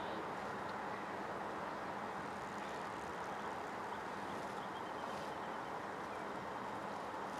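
Steady, even roar of distant traffic, with a faint high chirping about two-thirds of the way through.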